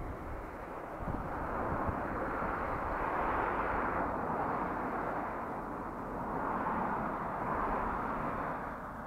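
Muffled wind noise buffeting the camera's microphone, with low thumps about a second in and the noise swelling twice.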